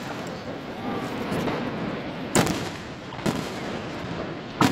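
Aerial fireworks shells bursting in the sky: three sharp bangs, about two and a half and three and a half seconds in and again near the end, over a steady background rumble of the display.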